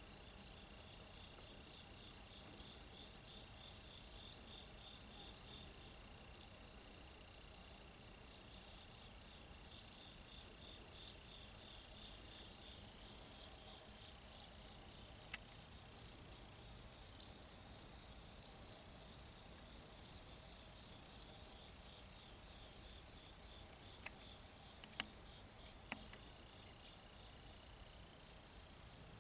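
Faint outdoor insect chorus: steady high-pitched trilling and pulsing chirps that carry on without a break, with a few soft clicks in the second half.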